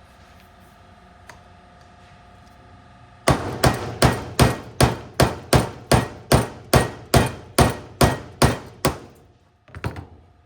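Hammer striking a metal punch in a quick even run of about sixteen blows, roughly three a second, then two lighter knocks near the end. It is driving out the fasteners that hold the polyurethane strip on a trap throwing arm.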